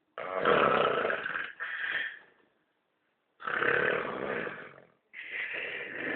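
A man snoring very loudly in his sleep: three long snoring breaths, with a short silent gap after the first.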